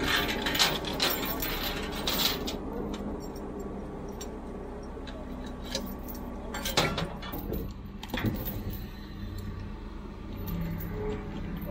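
A loader's engine running steadily while it holds an engine block on a lifting chain, with chain and metal clinking and a few sharp knocks as the load is handled.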